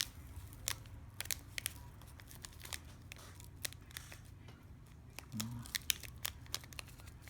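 Slime-kit sprinkles being shaken out of a small plastic container: a run of irregular sharp clicks and crinkles.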